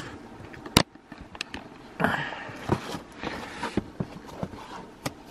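Handling noise from a cardboard product box being picked up and turned: a sharp knock about a second in, then scattered clicks, scrapes and rustles.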